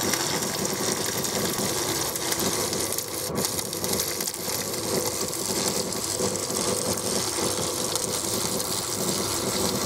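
Stick (MMA) arc welding on sheet metal with a 1.6 mm electrode, powered by an old HSE 150T transformer welder set to 50 amps: the arc crackles and sizzles continuously, with a steady hum beneath it.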